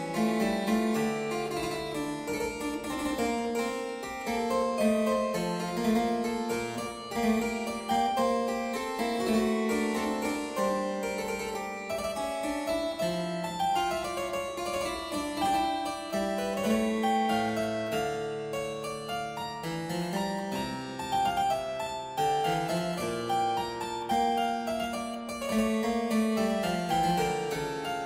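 Instrumental background music: a steady flow of short, separate notes, without any voice.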